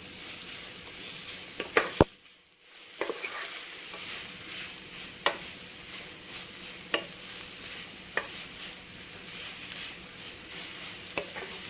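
Chopped raw papaya sizzling in coconut oil in a pan while a spatula stirs it, knocking and scraping against the pan every second or two. A loud knock about two seconds in is followed by a brief near-silent gap before the sizzling resumes.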